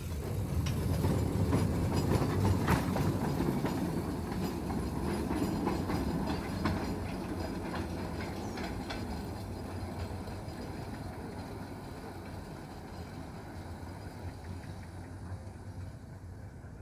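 Small garden-railway train running away along the track, its wheels clicking over the rail joints. It is loudest just after the start and fades steadily as it recedes.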